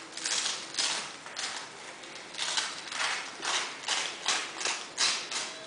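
Large German Shepherd panting: a steady run of quick breaths, about three a second, more uneven at first.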